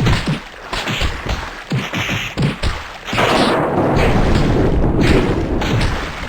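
Cold water splashing, first as a run of quick thuds, then from about three seconds in as a steady rush of pouring water.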